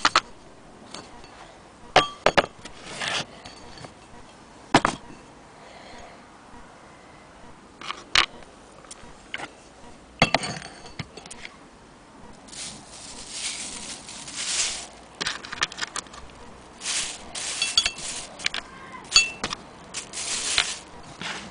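Handling noise from the cast-iron parts of an antique hand-crank sewing machine: scattered sharp clicks and knocks a second or two apart, then a plastic bag crinkling in repeated bursts through the second half.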